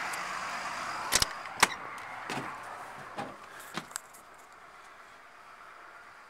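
About six sharp clicks and knocks from a motorhome's entry door latch and door as it is opened and gone through, the loudest about a second and a half in. The outdoor wind and traffic hiss drops to a quiet hush about four seconds in, once inside.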